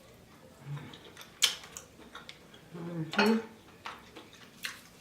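Close-up eating of a seafood boil: scattered sharp clicks and cracks of shells and utensils, the loudest about one and a half seconds in and another cluster around three seconds.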